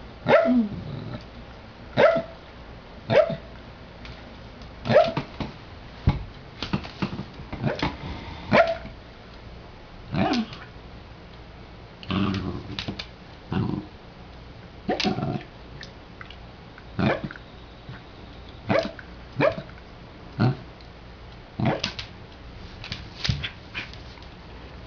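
Long-haired dachshund giving short, sharp barks in play, about twenty of them at uneven gaps of a second or two.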